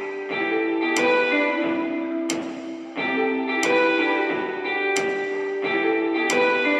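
Background music: plucked and strummed guitar over sustained notes, with a sharp beat about every second and a half.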